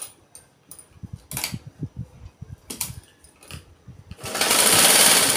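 A few light clicks and knocks of fabric being handled and lined up under the presser foot. About four seconds in, the sewing machine starts stitching in a fast, steady run.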